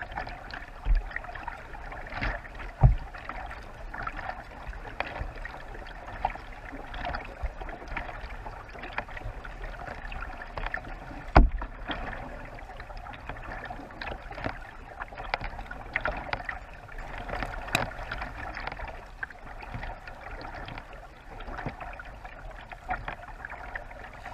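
Sea kayak being paddled: steady paddle-stroke splashing and water washing along the hull, with a few low thumps, the loudest about eleven seconds in.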